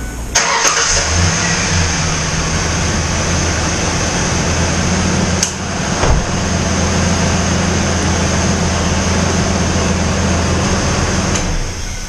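Ford Ranger pickup engine cranking and catching within about a second, then settling into a steady idle. The start comes just after its corroded battery cable ends were cleaned, and a couple of light clicks are heard midway.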